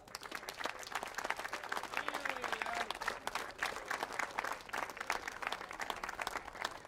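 Crowd applauding, many hands clapping at once, with a faint cheer or call among the claps.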